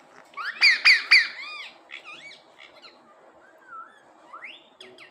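Parrot squawking and chirping: a loud cluster of quick rising-and-falling calls about half a second in, then softer chirps, a short low whistle, and a rising call near the end.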